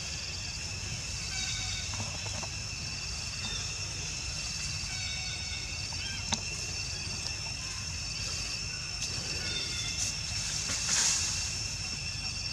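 Outdoor ambience of steady, high-pitched insect chirring over a low rumble, with a sharp click about halfway through and a brief louder scuffing noise near the end.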